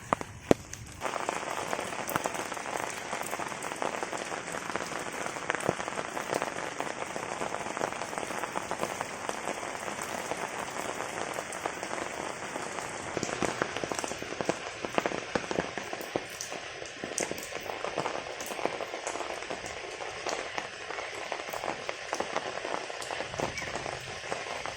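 Heavy rain falling, countless drops pattering on surfaces in a steady dense hiss. A couple of sharp clicks at the very start, then the rain comes in suddenly louder about a second in.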